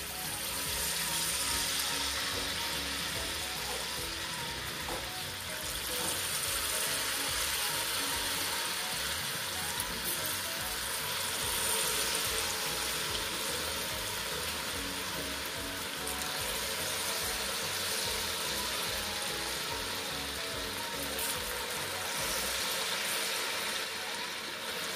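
Hot cooking oil sizzling as spoonfuls of corn fritter batter are dropped in and deep-fry, the sizzle swelling each time fresh batter goes in.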